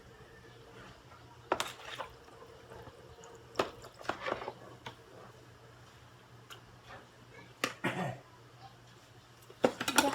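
Scattered light knocks and clinks of a utensil against a cooking pot, a few seconds apart, over a low steady hum.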